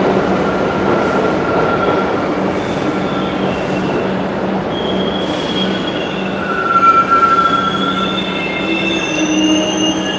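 New York City subway train moving through the station: a steady rumble with high, wavering wheel squeal that sets in about a second in and is strongest in the second half.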